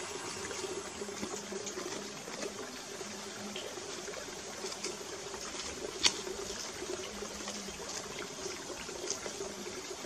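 A wooden stick scraping and poking through a bed of ashy charcoal embers: light scratching with one sharper click about six seconds in. A steady trickle of running water underneath.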